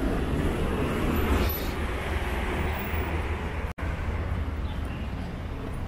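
City street traffic noise: a steady low rumble of cars on the road beside the sidewalk. The sound cuts out completely for an instant about two thirds of the way in.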